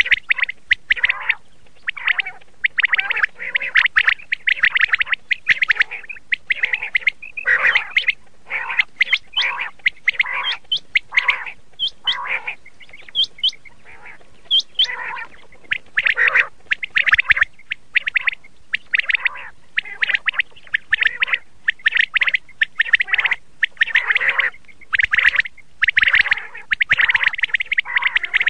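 Common quail calling over and over in quick, overlapping phrases, a quail-call track of the kind played to lure quail for hunting. About halfway through the calls thin out briefly to a few high chirps.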